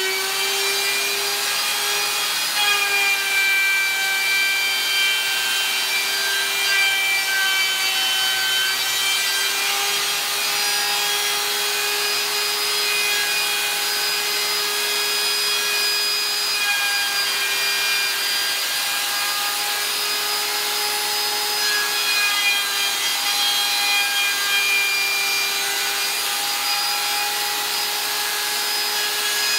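DeWalt handheld router running steadily, its spinning bit cutting into a high-density polyethylene board: a continuous motor whine over the hiss of plastic being chipped away, with small dips in pitch as the cut loads the motor.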